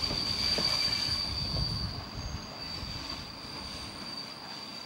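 Passenger train's wheels squealing against the rails in one steady high tone, heard from inside the carriage, over a low rumble of the running gear that eases after about two seconds.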